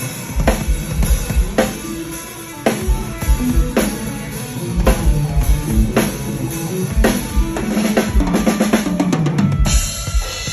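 Acrylic drum kit with new heads played in a groove: bass drum and snare backbeat with quick double kicks, then a fast fill running down the toms from high to low, landing on a crash cymbal near the end.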